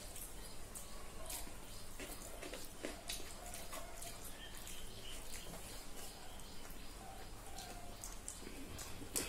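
Eating sounds: wet chewing and lip smacks, and fingers mixing rice and curry on steel plates, heard as irregular small clicks.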